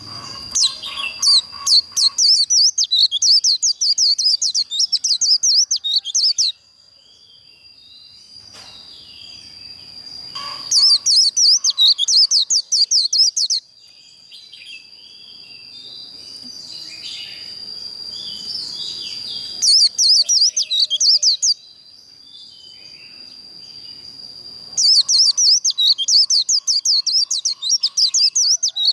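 White-eye singing its rapid, high 'líu' warble in four bursts, each a few seconds long, with short pauses between them. A steady high tone runs underneath.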